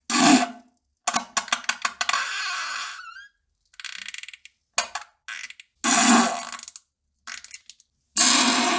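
Fart and poop sound effects: a string of short separate bursts, some with quick sputtering, with brief silences between them.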